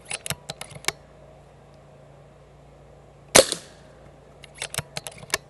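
A .22 Brocock Sniper XR Sahara pre-charged pneumatic air rifle fires one shot about three and a half seconds in: a sharp crack with a short ringing tail. Quick runs of light metallic clicks come shortly before and after the shot as the action is worked.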